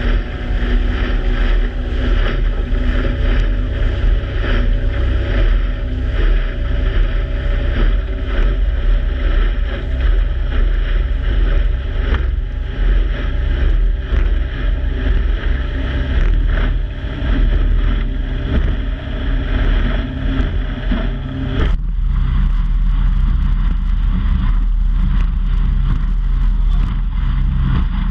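Motorboat running at speed, with wind buffeting the microphone and water rushing past the hull, a loud continuous rumble. About two-thirds of the way through there is a sharp click and the sound changes suddenly: the middle and upper noise falls away, leaving mostly the low rumble.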